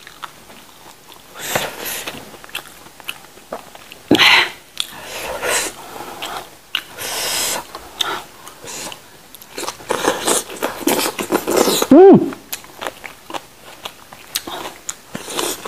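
Close-up eating sounds: wet chewing and lip smacking with crisp, crunchy bites and small clicks. Near the end comes a brief hummed vocal sound from the eater.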